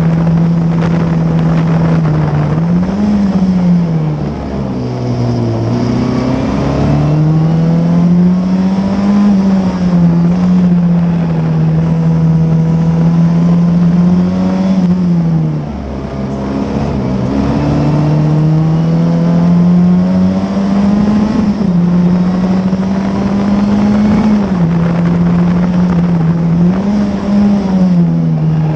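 Classic Formula Ford's 1600 cc Ford Kent four-cylinder engine at racing speed, heard from on board: the engine note climbs through the gears and falls back at each shift, with quick rises and drops at several points. It drops lower and quieter as the car slows for corners about four seconds in and again around sixteen seconds in, then climbs again.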